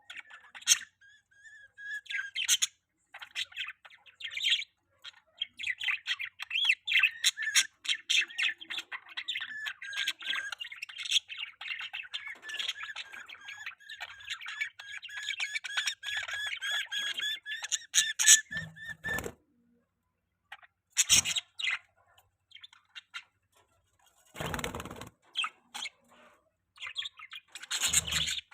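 Budgerigars chirping and chattering in a long, rapid warble, with a few squawks. The warble breaks off after about two-thirds of the time, and a few short rustling bursts and scattered chirps follow.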